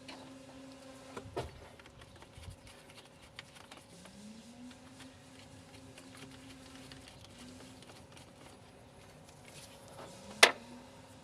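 A small electric motor spins up with a rising hum and then runs steadily, three times over, with small metallic clicks. A sharp, loud click near the end is the loudest sound.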